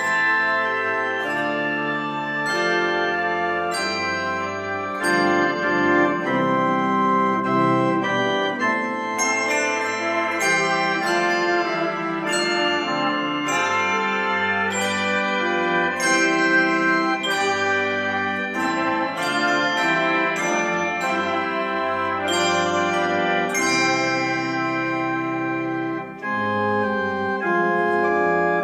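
Handbell choir ringing a processional: many bells struck in quick succession, their tones ringing on over one another in chords. The playing dips briefly near the end, then resumes.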